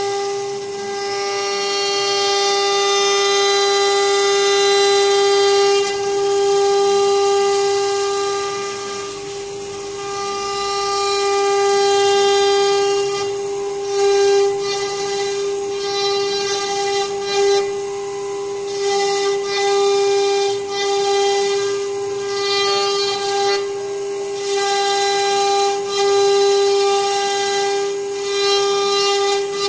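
CNC router spindle whining steadily at a high pitch while its V-bit carves grooves into a wooden door panel. A hiss from the cut rides on top, dipping briefly again and again in the second half as the bit moves along the pattern.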